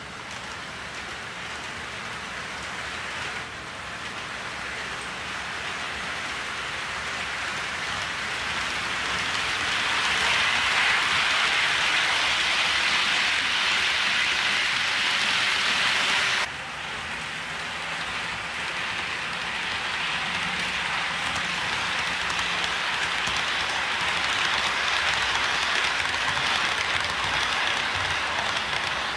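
HO scale model freight train rolling along the track: a steady rushing hiss of metal wheels on rail. It grows louder as the cars pass close, then drops abruptly about 16 seconds in and builds again.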